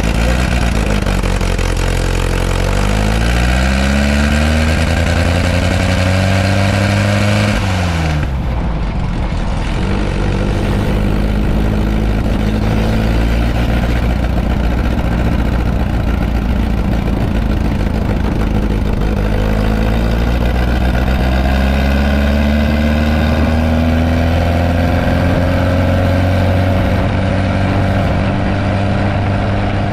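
Dune buggy engine running under way. Its pitch climbs over the first several seconds, drops sharply about eight seconds in, then climbs slowly again and holds steady near the end.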